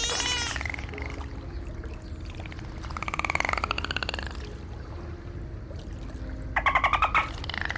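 Dolphin calls: a rising whistle at the start, then pulsed buzzing calls about three seconds in and a louder rapid burst of pulses near the end, over a steady low rumble.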